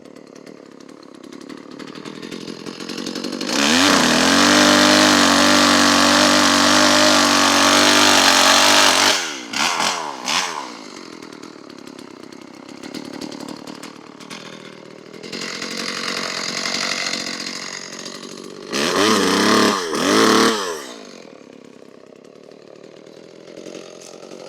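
Homelite Super 2 SL two-stroke chainsaw idling, then opened up to full throttle for about five seconds before dropping back. It is given a couple of quick blips, a milder rev, and two more short full-throttle bursts near the end.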